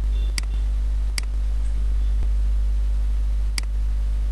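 Three sharp computer mouse clicks, unevenly spaced, as images are selected in a captcha, over a steady low electrical hum that is the loudest thing heard.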